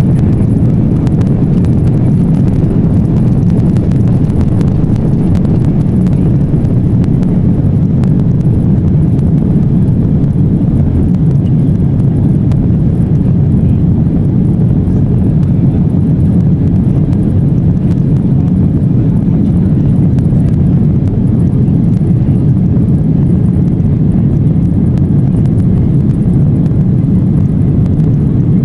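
Airliner jet engines at takeoff thrust, heard from inside the cabin as a loud, steady low rumble as the plane finishes its takeoff run, lifts off and climbs.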